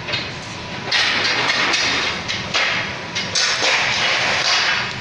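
Clatter and knocks of an aluminium scaffold tower being put up: a dense run of knocks and metal rattles, much louder from about a second in.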